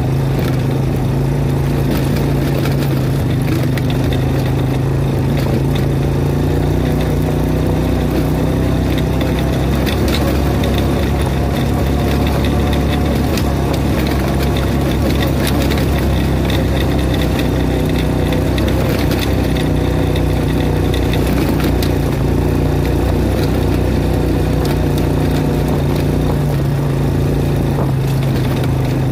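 ATV engine running steadily under way, its pitch rising and falling a little with the throttle, with scattered clicks and knocks over the drone.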